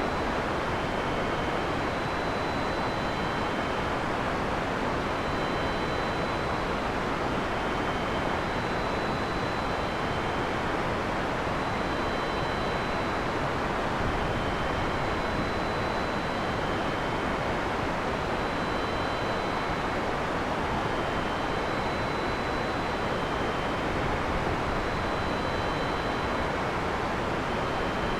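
Heavy rain falling steadily, a dense, even hiss with no thunderclap. Faint thin high tones recur every couple of seconds.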